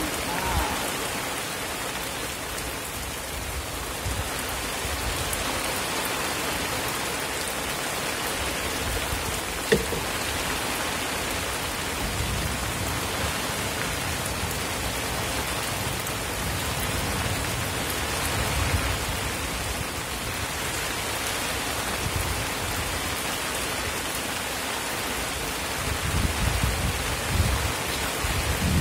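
Steady rain falling on open water and a wet bamboo raft, an even hiss. A single sharp knock comes about ten seconds in, and low rumbling swells near the end.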